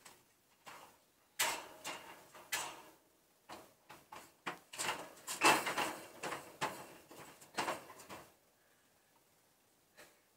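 Irregular knocks, clatters and rustling of something being handled or moved about out of view, a cluster of them between about one and a half and eight seconds in, loudest around the middle, then quiet.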